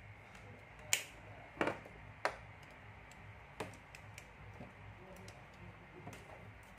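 Light clicks and taps of small parts being handled: a jumper wire, a plastic DC jack adapter with a screw terminal, and a small screwdriver. There are about five clicks spread unevenly, the loudest about a second in, with a pair close together just after, over a faint steady low hum.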